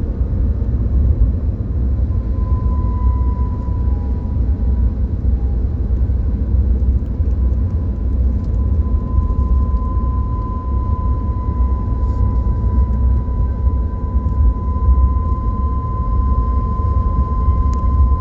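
Inside a BMW E90's cabin while driving: steady low road and drivetrain rumble, with a thin steady high-pitched whine that comes in about two seconds in, drops away briefly, and holds from about six seconds on. The owner suspects a wheel bearing or the transmission as its cause.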